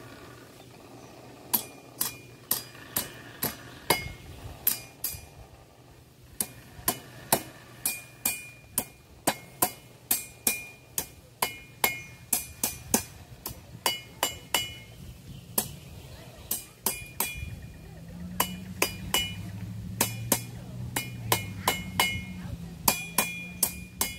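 Blacksmith's hammer striking hot iron on an anvil, forging a fireplace poker. The blows come in a steady rhythm of about two a second, starting about a second and a half in, and each has a bright metallic ring.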